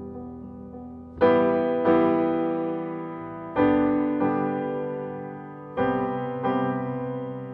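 Background piano music: a soft passage, then loud chords struck every second or two, each ringing out and fading.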